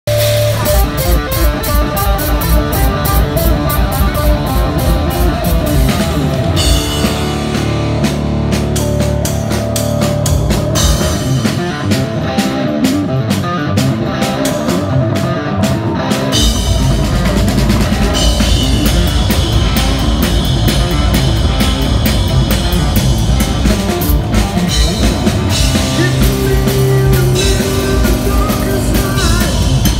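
Loud live rock music from a power trio: distorted electric guitar, bass and a full drum kit playing hard and driving. The deepest bass drops away for several seconds, from about a quarter of the way in to just past halfway, then comes back in.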